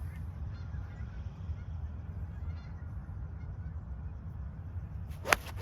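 A golf club strikes the ball once with a sharp crack near the end, over a steady low rumble.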